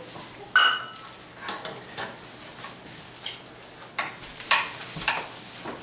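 Kitchen prep clatter. A short, bright, ringing clink comes about half a second in, followed by scattered light knocks and taps of utensils on the counter and cutting board, over a faint hiss.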